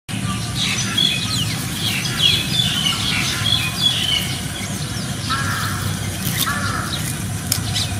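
Chirping and squeaking animal calls: many quick high chirps in the first half, then two short squealing calls in the second half, over a steady low hum.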